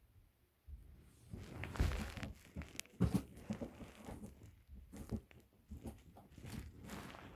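Crinkling, rustling and crackling of a disposable self-heating eye mask and its packaging, pulled and twisted in the hands while being torn at, in uneven bursts with small clicks.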